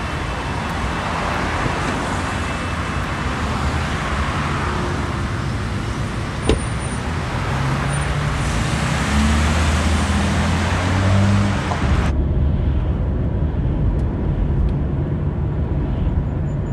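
Busy city street traffic, cars passing steadily on a multi-lane road, with a single knock about six seconds in. About twelve seconds in the sound cuts suddenly to the dull, low rumble of a car's cabin on the move.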